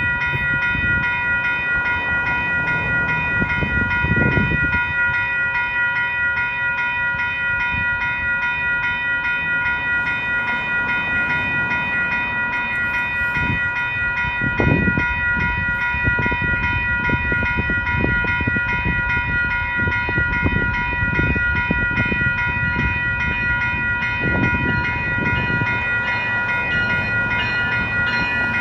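WCH Type-4 electronic railroad crossing bells ringing steadily in rapid, even dings, the warning that a train is approaching the crossing. A low rumble swells and fades a few times underneath.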